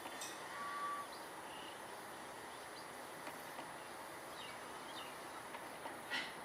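A few short, scattered bird chirps over steady background noise, with the loudest chirp near the end.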